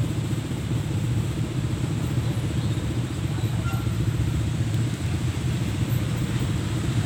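An engine running steadily with a low, fast-pulsing rumble.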